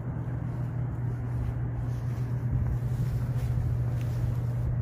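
Steady low mechanical hum, with an uneven rumble of wind on the microphone beneath it.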